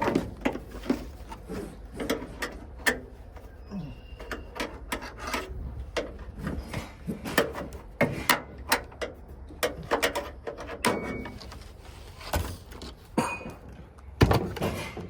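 Irregular metal clicks, knocks and rattles from hands and tools working the lock and handle linkage inside a van's side door, with a louder knock near the end.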